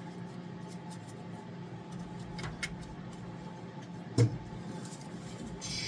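Small metal clicks and one short knock as a fuel pump is worked into place against its mounting, over a steady background hum, with a brief scrape near the end.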